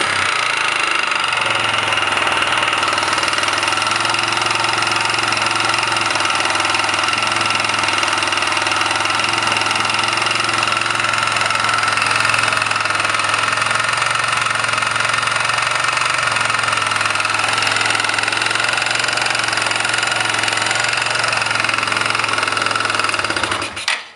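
1999 Kawasaki Bayou 220 ATV's single-cylinder four-stroke engine running steadily with a knock, which the owner has just found and questions. The engine shuts off near the end.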